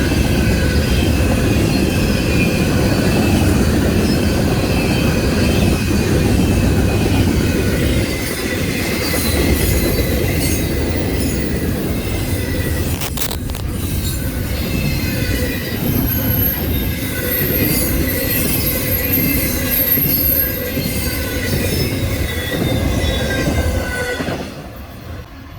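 Freight train cars rolling past with a steady heavy rumble and wheels squealing in several high tones. A higher squeal joins partway through, and the sound drops away suddenly shortly before the end.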